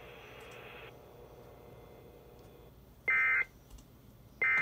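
Emergency Alert System end-of-message code: short, shrill digital data bursts, identical and about a second and a half apart, two of them here, signalling the end of the alert. Before them a faint line hiss drops away about a second in.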